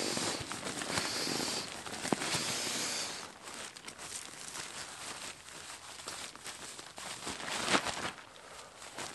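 Nylon pump sack being pressed down to push air into an inflatable sleeping mat: a rush of air and rustling fabric for about three seconds, then quieter crinkling and crackling of the sack as it is worked and lifted to refill, with one sharper crackle near the end.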